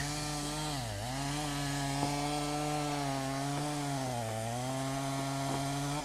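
Husqvarna chainsaw running at high revs while cutting through a fallen hackberry trunk. The engine note dips twice briefly, about a second in and again near the end, as the chain loads in the wood, then recovers.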